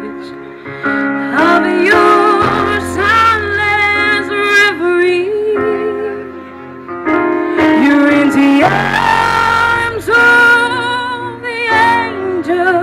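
A woman singing live into a handheld microphone through the stage sound system, holding long notes with vibrato over instrumental backing.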